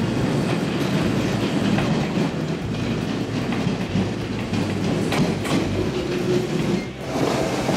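Electric local train pulling into a station platform, its wheels clacking over the rail joints, with a short steady whine about six seconds in.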